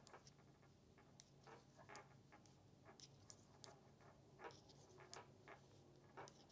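Faint, uneven clicking of metal knitting needle tips tapping together, a few times a second, as stitches are purled in bulky yarn, over a low steady hum.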